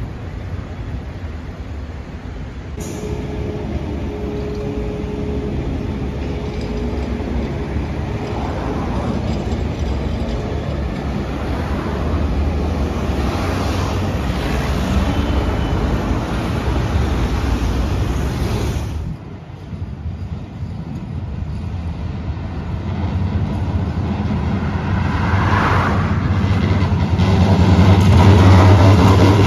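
Low-floor electric trams running past on street track: a steady rumble of wheels on rail and motors mixed with city traffic, with a steady whine for a few seconds near the start. Near the end a tram draws close and the rumble grows loudest.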